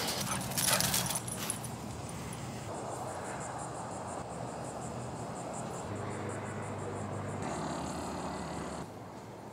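A chain-link gate rattles briefly at the start as someone squeezes through it, then a steady hum of distant road traffic.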